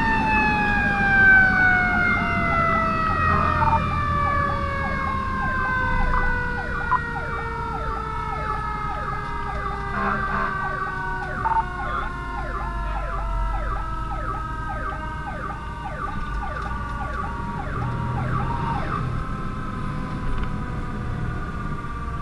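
Mechanical Federal Q siren on a 1996 Spartan/Darley fire engine winding down, its scream falling slowly and steadily in pitch. A quicker siren warble repeats a few times a second over it until near the end, with the truck's engine and road rumble underneath.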